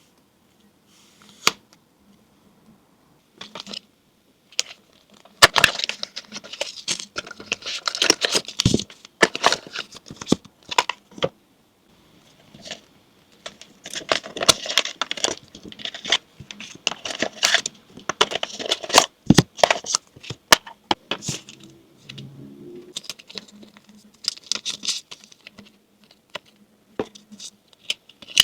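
Action camera packaging being handled and opened: cardboard and plastic rustling, tearing and crinkling in irregular bursts, with many clicks and taps.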